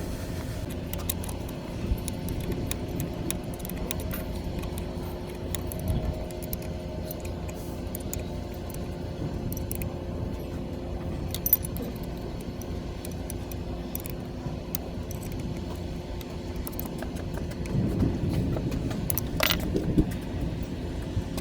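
Repeated light metallic clinks and rattles, like tools or bolts knocking against metal, over a steady low hum, with one sharper clank near the end.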